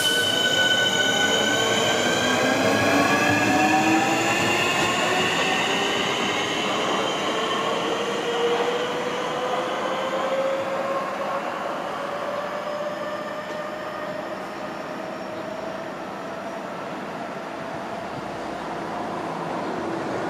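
Class 465 Networker electric multiple unit pulling away from the platform: its traction motors whine, rising in pitch as the train accelerates over the first ten seconds or so. The sound then fades steadily as the train runs off into the distance.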